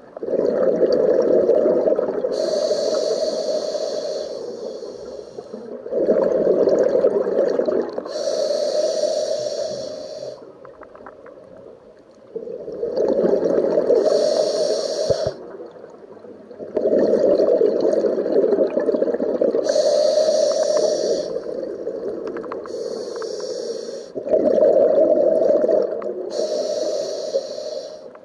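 Scuba diver breathing through a regulator underwater: five breath cycles, a breath about every five or six seconds, each a swelling rush of bubbling exhaust with a hiss from the regulator.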